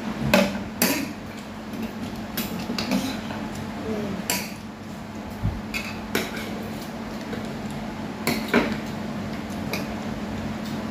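Chopsticks and metal spoons clinking and scraping against ceramic bowls and plates as people eat, in scattered separate clicks over a steady low hum.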